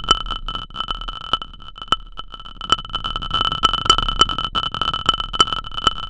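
Synthesized rolling tin can from a Pure Data sound-design patch: an irregular run of clicks and knocks over a low rumbling noise. Each knock rings at the same two metallic pitches. The knocks thin out about a second in and grow busier again around the middle.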